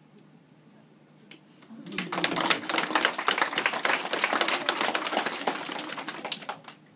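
An audience of young children clapping: applause breaks out about two seconds in, runs thick and fast, and dies away shortly before the end.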